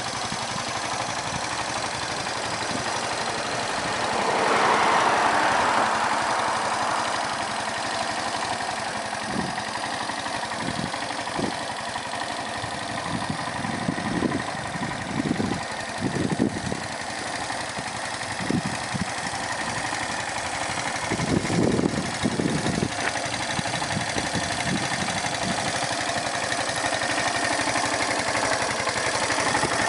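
1998 Yamaha SR125's single-cylinder four-stroke engine idling steadily, swelling louder for a few seconds about four seconds in.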